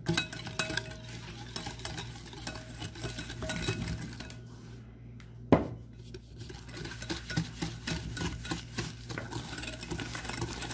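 Hand whisk beating egg yolks in a cut-glass bowl, its wires clicking rapidly against the glass. The beating pauses briefly as sugar goes in, with one sharp knock about five and a half seconds in, then resumes as the sugar is whisked into the yolks.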